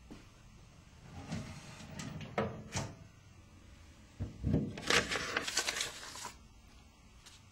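Rustling and knocking handling noises in two spells, the first about a second in, the second and louder about four seconds in.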